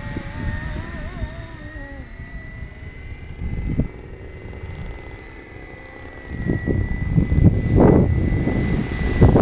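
470-size RC model helicopter flying, its rotor and motor giving a steady high whine. Wind buffets the microphone, and from about six seconds in heavy gusts rumble over it.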